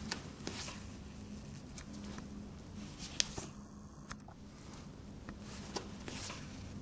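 Hand sewing by a tailor: soft rustle of jacket cloth and lining being handled and thread drawn through the fabric, with a few sharp little clicks.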